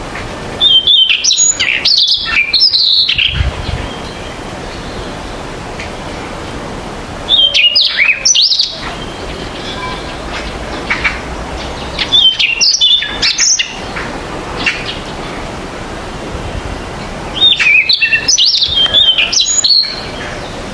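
Spot-throated babbler singing in four bursts of fluid, ever-changing whistled phrases, each one to three seconds long and a few seconds apart.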